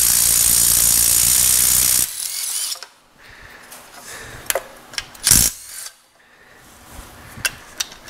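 Small cordless power tool running steadily for about two seconds as it spins a bolt on the front of a Toyota 2JZ engine, then easing off. A few separate clicks and knocks from the tool and parts follow, the loudest about five seconds in.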